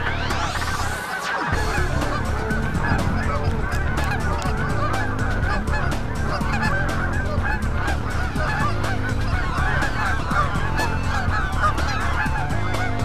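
A large flock of geese honking overhead in a dense, continuous chorus of many overlapping calls.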